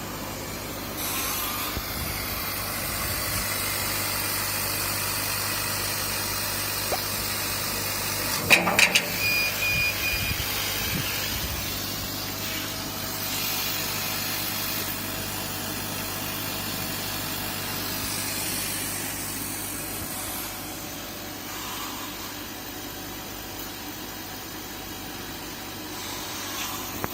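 Laser cutting machine running: a steady hum under a hiss that shifts in level a few times, with a short burst of sharp clicks and knocks about nine seconds in.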